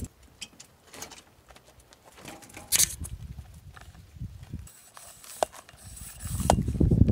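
Small clicks and knocks of a bicycle pump head being fitted onto a tyre valve, with a brief hiss of air about three seconds in. Louder low rumbling takes over near the end.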